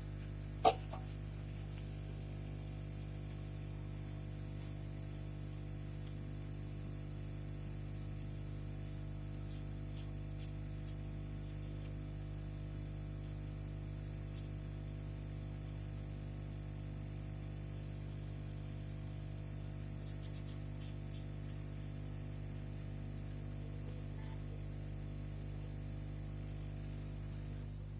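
Hot-air rework station blower running with a steady hiss over a low electrical hum, which stops suddenly at the very end. A sharp click comes about a second in, and a few faint ticks come around twenty seconds in.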